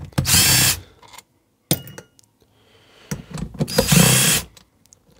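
Handheld power tool spinning out bolts from the camshaft carrier of a Rover K-series cylinder head, in two short whining runs: one just after the start, the other a little longer near the end, with a few light clicks between.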